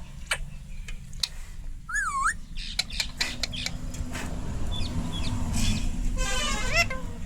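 Indian ringneck parrot calling: sharp clicks and short squawks, a wavy whistle about two seconds in, and a rattling trilled call near the end.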